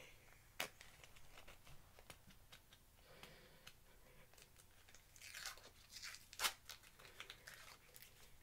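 A small jar's plastic screw cap being twisted and handled: scattered sharp clicks and crinkly crackling, with a louder click about half a second in and another about six seconds in.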